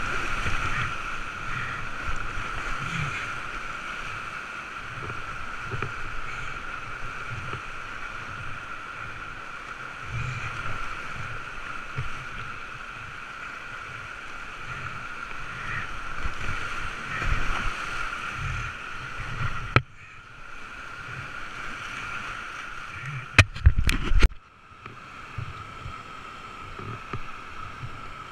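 Whitewater rapids on a steep creek heard from a kayak running them: a steady rush of water with uneven low thuds. About four seconds before the end comes a quick cluster of sharp, loud knocks.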